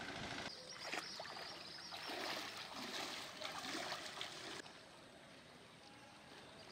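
Faint splashing and trickling of floodwater as people wade through it. After about four and a half seconds it gives way to a quieter, steady background.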